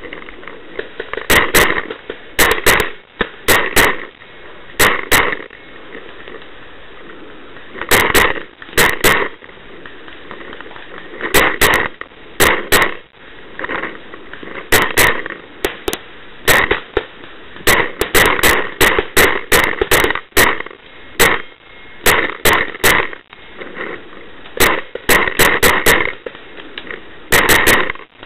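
Brass Eagle Stingray paintball marker firing rapidly: sharp pops in quick pairs and triplets, a burst every second or two, dozens of shots in all.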